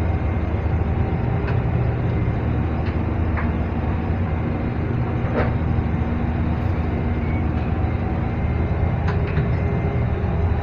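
Shrimp trawler's engine running steadily underway, a constant low drone, with a few faint clicks.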